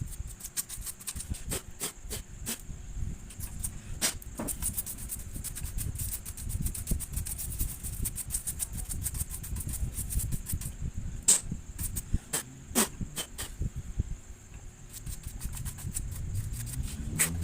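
Scratchy rubbing with many small clicks and taps, scattered irregularly and a few louder ones about four, eleven and thirteen seconds in: hand cleaning and handling of a laptop's cooling fan and heatsink parts.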